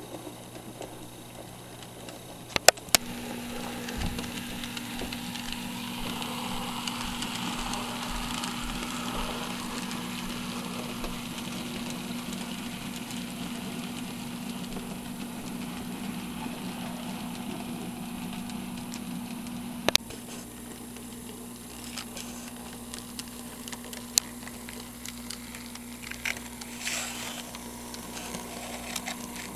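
Model train running on the track: a steady motor hum with the rolling rumble of the cars' wheels on the rails. The hum comes in after two sharp clicks about three seconds in and drops away after another click about two-thirds of the way through, with a few more light clicks later.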